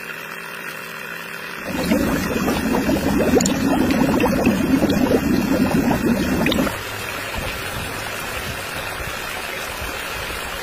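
Water from a miniature motor-driven pump pouring out of a thin plastic tube into a small plastic toy tank, splashing and gurgling for about five seconds before cutting off suddenly. A steadier, quieter background noise runs on before and after it.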